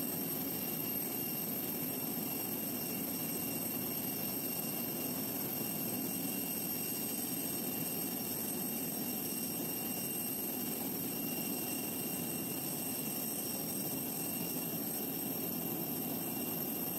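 Jet airliner engines running at taxi power: a steady even rumble with a high, unwavering whine over it.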